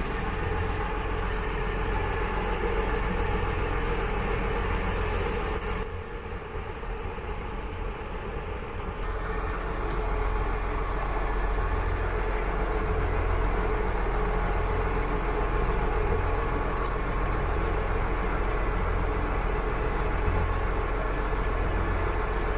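Boat's engine running steadily with a low drone, briefly quieter for a few seconds about six seconds in.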